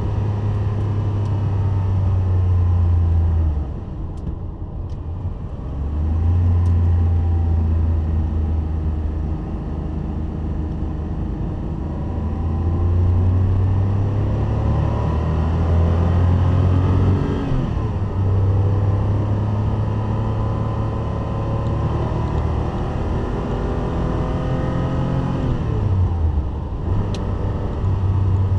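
Classic air-cooled Porsche 911 flat-six engine heard from inside the cabin while lapping a race track, its note rising in pitch as it accelerates and breaking off three times at gear changes or lifts, over a deep drone and wind and tyre noise.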